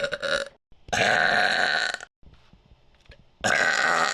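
A person burping deliberately: one long, drawn-out burp of about a second, between the tail of one that fades just after the start and the start of another near the end.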